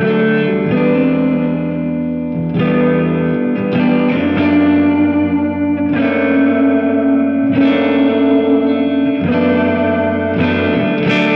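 Electric guitar, a 1992 Orville by Gibson Les Paul Custom with Lollar Imperial pickups, playing ringing chords that change every second or two. It has a little overdrive into a Softube JMP 2203 amp sim, a 1960s-style filter with moderate compression that sounds slightly older, and a wide reverb with a fair amount of decay.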